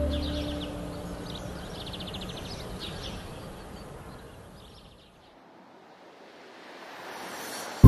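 Outdoor ambience: birds chirping in quick trills over a steady hiss, fading away to a low hush about five seconds in. A rising swell of hiss builds near the end.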